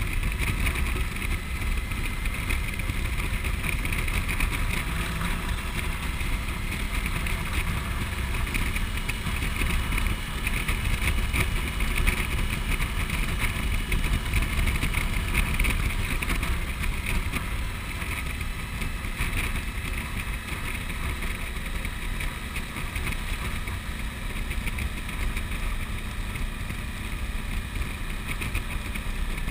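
Suzuki V-Strom's V-twin engine running at a steady cruising speed, with wind rushing over the microphone.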